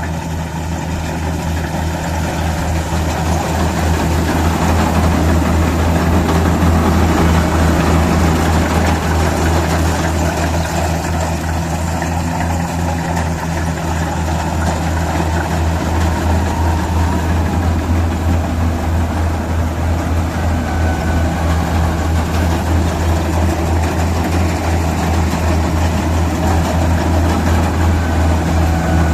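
Kubota DC-60 rice combine harvester's diesel engine running steadily with a low, even hum as it works the field, growing louder over the first few seconds and then holding steady.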